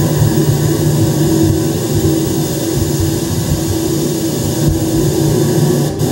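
A loud, steady low rumbling drone with no beat or melody.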